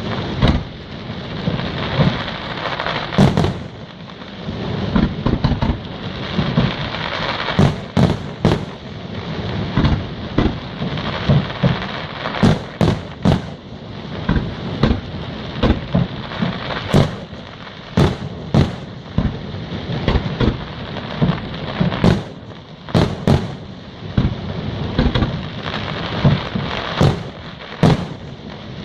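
Aerial fireworks display: a rapid, continuous run of shell bursts, sharp bangs often several a second, over a steady crackling hiss.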